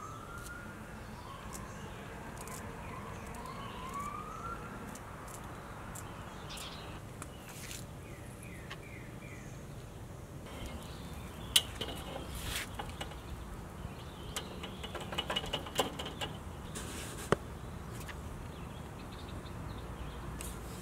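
Sharp, scattered snips of kitchen scissors cutting chives, with a denser run of clicks past the middle. Birds chirp with rising whistled calls in the first few seconds, over a steady outdoor background.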